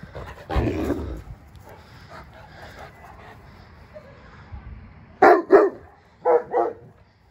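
Dogs play-fighting: one longer call about half a second in, then two quick pairs of loud, short barks near the end.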